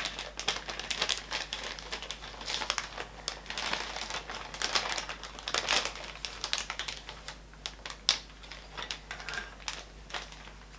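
A plastic bag crinkling and rustling as plastic Petri dishes are taken out of it. Scattered sharp clicks come from the dishes knocking together and being set on a wooden table, the loudest about eight seconds in.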